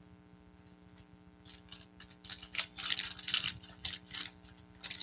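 Trading-card pack wrapper crinkling and tearing as a 2021-22 NBA Chronicles hobby pack is opened. It starts about a second and a half in as irregular crackles and gets louder toward the end.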